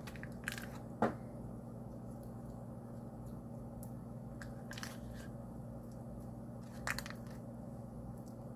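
Quiet handling sounds of fingers scooping soft cheese from a foil wrapper and spreading it over ham on dough: a few short rustles and clicks, and one sharper knock about a second in, over a steady low hum.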